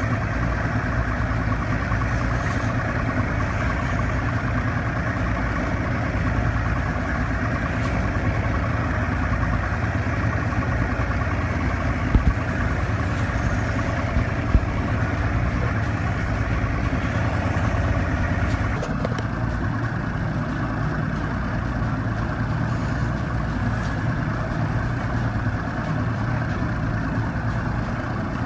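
Boat engine running steadily, heard from aboard the vessel as a low hum. The sound thins a little about two-thirds of the way through, and there are a couple of brief clicks midway.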